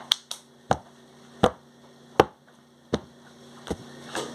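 A row of sharp, short clicks or snaps, about one every three-quarters of a second.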